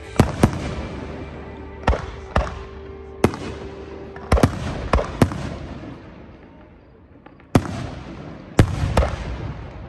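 Aerial firework shells bursting overhead in a show: about a dozen sharp bangs at irregular intervals, some in quick pairs, each followed by a fading echo.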